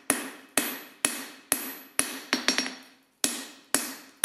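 Hand hammer striking a 20 mm square steel bar on an anvil, knocking the corners off the bar. The blows come at about two a second, each with a ringing tail, with a short pause about three seconds in.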